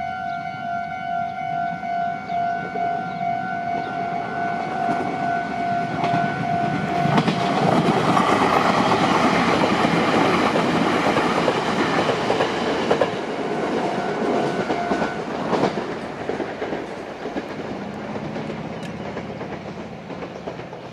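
Japanese level-crossing warning bell ringing in a steady repeated electronic tone. About seven seconds in a Meitetsu Tsushima Line train runs over the crossing with a loud rush of wheel and rail noise that peaks for several seconds and then fades. The bell stops about fifteen seconds in.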